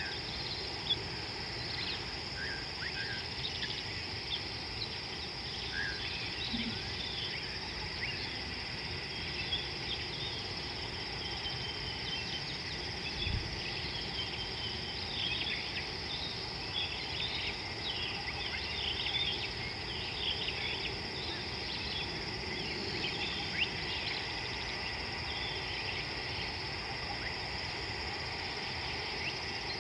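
Dusk savanna ambience: a steady high-pitched insect chorus with many short, scattered high chirps over a low background hiss. One brief low thump comes about 13 seconds in.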